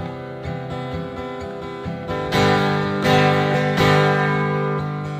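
Acoustic guitar strummed in an instrumental passage between sung verses of a live concert recording played from cassette tape, with heavier strokes about two, three and four seconds in.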